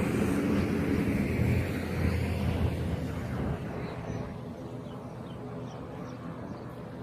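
A motor running steadily under a rushing noise, which drops away about three and a half seconds in and leaves a quieter steady drone.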